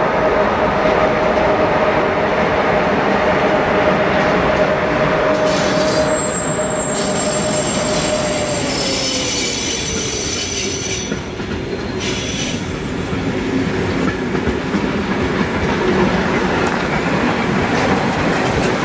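A train rolling past close by, a dense rail rumble with a steady tone that falls in pitch about nine seconds in. High wheel squeals sound through the middle.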